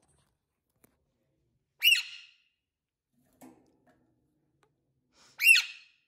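Alexandrine parakeet giving two short, high-pitched screeches about three and a half seconds apart.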